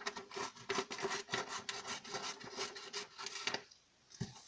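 Scissors cutting a sheet of A4 paper: a quick run of rasping snips that stops a little before the end, followed by one more short sound.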